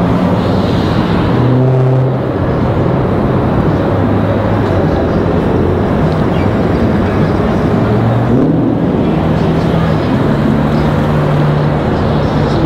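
Steady city traffic noise from cars on the boulevard, with an engine hum that rises in pitch about eight seconds in as a vehicle speeds up.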